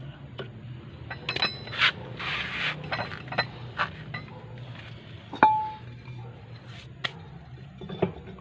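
Metal tools and brake parts clinking and knocking together as they are handled, with a short scrape a little after two seconds. At about five and a half seconds comes the loudest hit, a ringing metallic clink.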